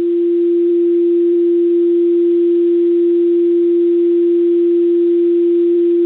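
Fire dispatch paging tone heard through a scanner radio: one steady, unbroken mid-pitched tone with a faint hiss under it, the alert tone that sets off the fire department's pagers before the dispatch is repeated.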